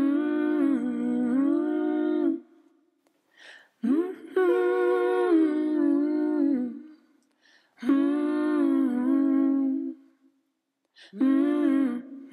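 Background song: a singer hums four long wordless phrases, each held for two to three seconds with short pauses between them.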